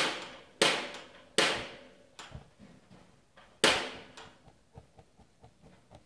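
Spark igniter of a portable gas heater snapping four times as the heater is lit: three sharp clicks in quick succession, a fourth about two seconds later, each with a short fading tail. Faint light ticking follows.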